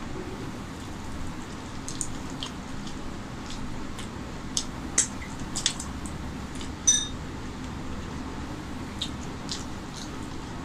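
Wet chewing and lip smacks of a person eating rice and chicken curry, with a run of sharp mouth clicks in the middle and one louder ringing click about seven seconds in, over a steady low background hum.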